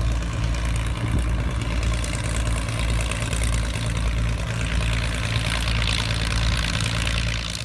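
Two piston engines and propellers of a light twin-engine plane running at high power on the runway, with a steady low drone that grows louder between about five and seven seconds in as the plane rolls past.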